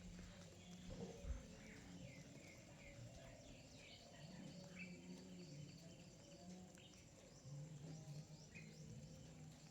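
Faint chirping of small birds, short high chirps scattered through, over a low hum.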